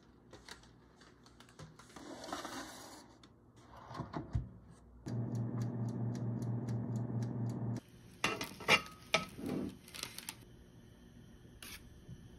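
Light clicks of a basting brush against a bowl, then a small countertop electric oven running with a steady hum and a fast, even ticking of about four ticks a second. About eight seconds in, the metal baking tray and wire rack clatter and clink as they are handled.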